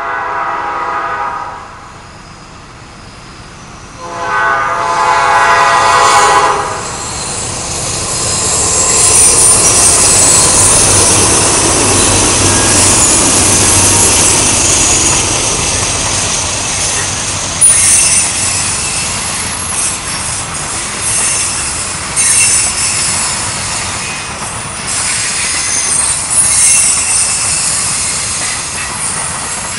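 Horn of a GE Dash 9-40CW diesel freight locomotive sounding, with a break of about two seconds before a second blast that ends about six seconds in. The locomotives then pass close with a deep engine rumble, followed by covered hopper cars rolling by with a steady high-pitched rail noise and a few sharp clanks.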